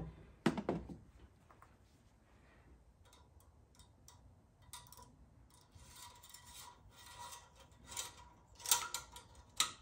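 Handling of an engine oil dipstick while the oil level is checked. A couple of knocks come about half a second in, then light rubbing and scraping clicks as the dipstick is drawn from its tube and wiped, growing busier toward the end.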